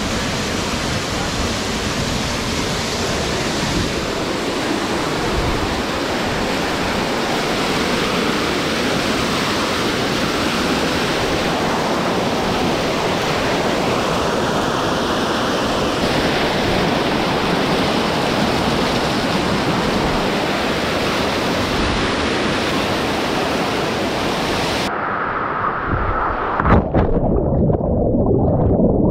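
Waterfall rushing: a loud, steady hiss of falling water. About 25 seconds in the sound turns duller, the high hiss dropping away, with uneven low bumps like wind buffeting the microphone.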